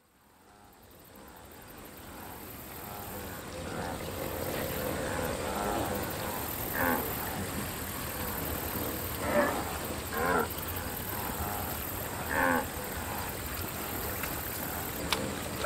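A herd of wildebeest grunting and lowing over a steady background hiss, fading in from silence over the first few seconds. A few louder calls stand out through the middle, and a single sharp click comes near the end.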